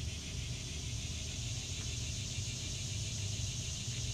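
Steady outdoor background noise: a constant low rumble under a high, even hiss, with no distinct events.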